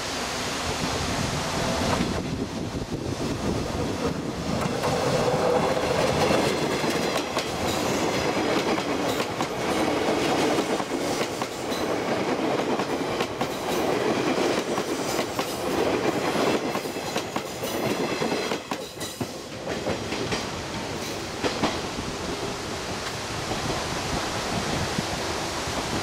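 JNR 485 series electric multiple unit pulling away from a station and passing close by, its wheels clacking over the rail joints.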